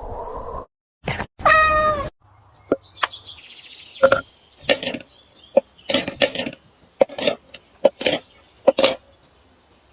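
A cat meows once, briefly, about a second and a half in, followed by a run of short, sharp sounds at roughly two a second.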